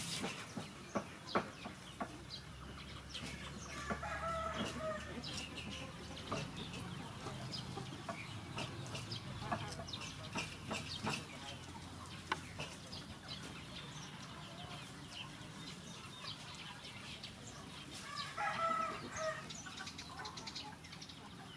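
Chickens calling, with two longer calls, one about four seconds in and one near the end, among scattered short chirps.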